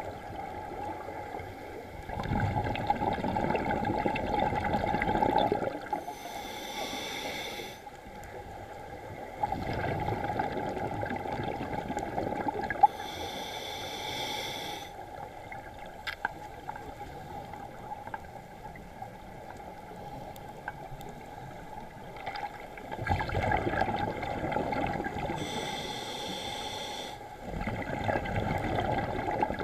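Scuba diver breathing through a demand regulator, heard underwater through a camera housing: a short hissing inhale, then several seconds of bubbling exhale, repeated about three times. One sharp click near the middle.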